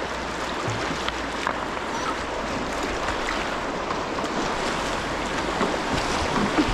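River whitewater rushing steadily around a kayak, with small splashes from paddle strokes.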